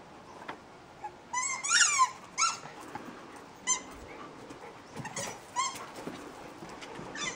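A dog whining in a series of short, high-pitched calls, about six of them spread over several seconds.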